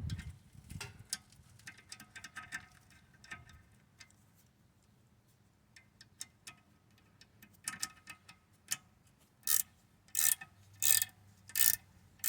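Socket ratchet clicking as a 13 mm brake caliper bolt is turned down. There are scattered light clicks at first, then from about nine seconds in a run of louder ratcheting strokes, about one every 0.7 seconds.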